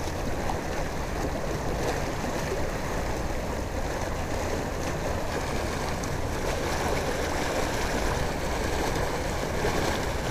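Steady rush of water pouring out of a large spill pipe into a river.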